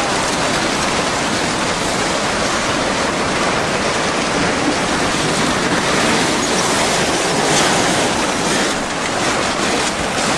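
Tsunami floodwater surging through a town, a loud, steady rush of churning water carrying wreckage of houses.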